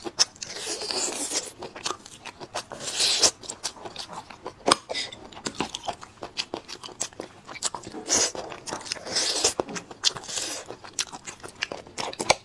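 Eating sounds from braised lamb bone marrow: wet smacking and chewing clicks, with several slurps about a second long as the marrow is sucked from the bone.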